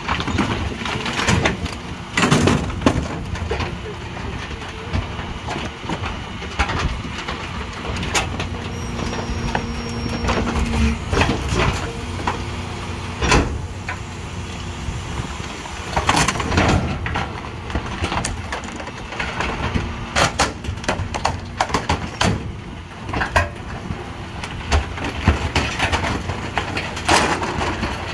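McNeilus rear-loader garbage truck running at the kerb while bulky household items are thrown into its hopper, with repeated crashes and knocks of wood and furniture landing over the steady engine hum. The hydraulic packer blade cycles to sweep the load in.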